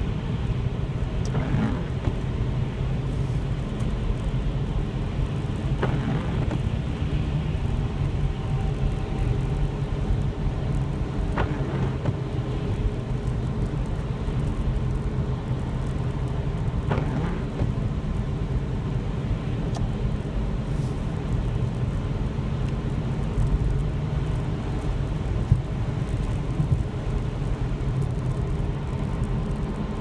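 Car cabin road noise while driving on a wet, slushy road: a steady low rumble of engine and tyres with a hiss of water, and a few short clicks near the end.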